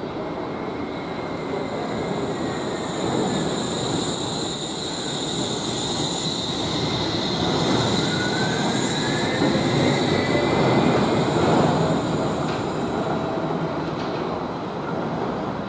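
Wuppertal Schwebebahn suspended monorail car of the new Generation 15 type running past on a curve of its overhead steel track. The rumble of its wheels on the rail swells to a peak about ten to twelve seconds in, over a steady high-pitched wheel squeal, with a short rising whine midway.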